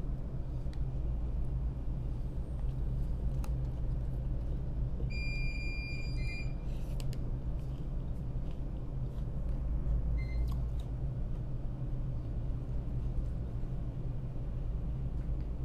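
Steady low rumble of an ASD tug's diesel engines running. About five seconds in, a high electronic beep sounds for about a second and a half, and a shorter, fainter beep follows about ten seconds in.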